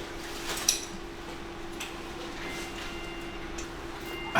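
Quiet indoor room tone with a steady hum, one sharp click about a second in and a few fainter ticks.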